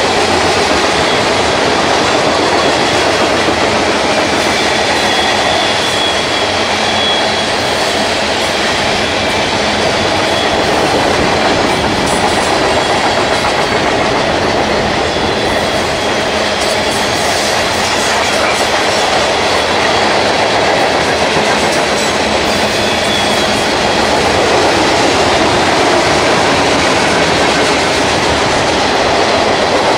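Covered grain hopper cars of a long, heavy BNSF freight train rolling steadily past, steel wheels clicking over the rail joints with a continuous rumble. Faint high wheel squeals come through now and then.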